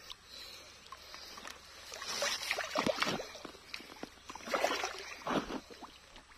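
A hooked fish thrashing and splashing at the water's surface while being played from the bank. The splashing comes in two spells, about two seconds in and again about four and a half seconds in.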